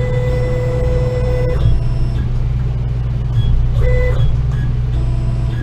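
Steady low machine hum, with the Laguna iQ CNC router's axis motors whining as the spindle is jogged from the handheld pendant: one steady whine for the first second and a half, and a short one about four seconds in.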